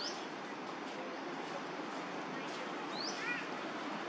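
Outdoor ambience: a steady hiss-like background with two short, high rising chirps, one at the start and one about three seconds in.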